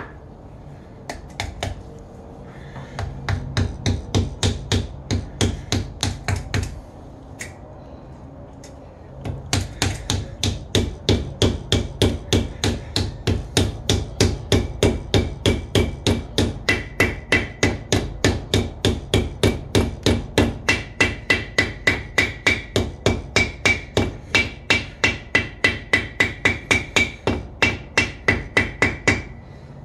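A hammer tapping a new pinion seal into the pinion bore of an AAM 11.5 rear axle housing, in a steady run of light metallic strikes at about two to three a second. There is a short pause with a few single taps, then a long unbroken run; in the later strikes a ringing note hangs on each blow.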